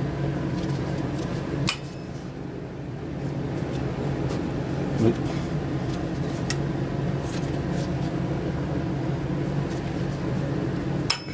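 Vice grips (locking pliers) working a rusted brake line nut at a truck's rear wheel cylinder: a few sharp metal clicks, the last with a brief ring, and a dull knock midway, over a steady low hum. The nut is rounding off, so it is being turned with the locking pliers instead of a wrench.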